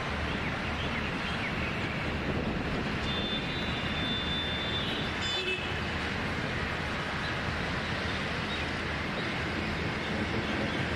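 Steady rushing background noise of the kind distant road traffic makes, with a brief high thin tone about three to five seconds in.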